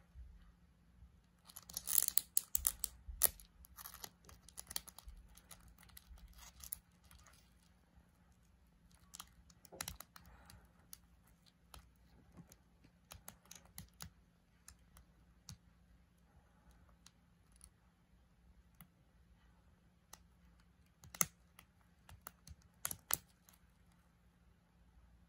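A Dorcus titanus typhon and a Mesotopus tarandus stag beetle grapple on dry wood, their hooked feet scratching and clicking on the wood and their hard shells and mandibles knocking together. A dense flurry of faint clicks and scratches starts about two seconds in, then thins to scattered ticks, with another short burst a little over twenty seconds in.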